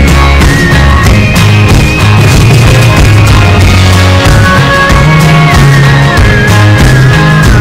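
Loud rock-style music with a steady drum beat, heavy bass and a held lead line that steps between notes.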